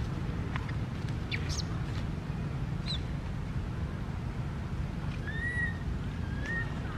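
Newborn macaque crying: two short, arched, whistle-like cries about five and six and a half seconds in, over a steady low rumble of wind, with a few faint high chirps earlier.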